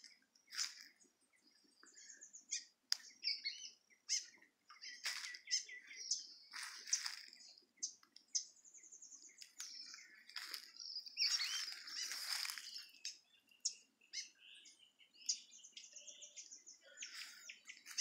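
Small birds chirping, with short calls and quick trills, busiest a little past the middle.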